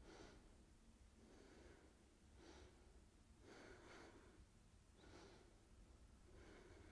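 Near silence with a woman's soft, slow breathing, a faint breath about every second or so, as she holds a seated yoga twist.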